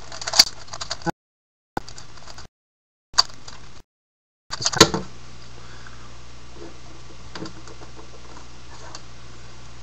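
Plastic clicking and clacking of a mirror blocks puzzle cube being twisted by hand, a few sharp clacks, the loudest about five seconds in, among fainter ticks over a steady low hum. The sound cuts out completely three times in the first half.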